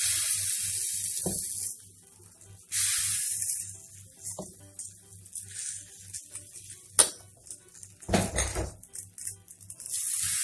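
Dosa batter sizzling in bursts as ladlefuls hit a hot dosa tawa, with a sharp click of the metal ladle about seven seconds in and a short scraping rustle just after, over a faint steady low hum.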